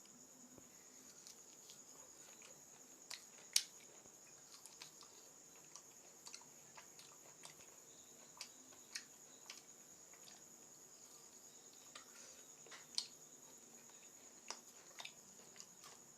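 Faint eating sounds: scattered small clicks and smacks of someone eating rice and mutton curry, two of them sharper, about three seconds in and near the end. Under them runs a steady high-pitched insect drone.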